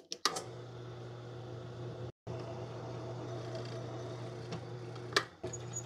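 Benchtop drill press running with a steady hum as its step drill bit bores into a cast mild-steel nut cap. The sound cuts out for a moment about two seconds in, and there is a sharp click near the end.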